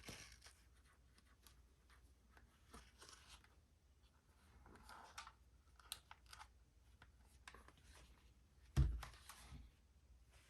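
Handling noise from a goggle unboxing: scattered rustling of packaging and small sharp clicks, with one dull thump about nine seconds in.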